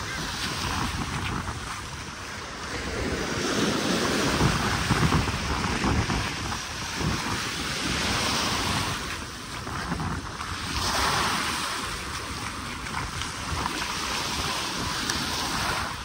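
Small waves breaking and washing up a sandy beach, the hiss of the surf swelling and fading several times, with wind rumbling on the microphone.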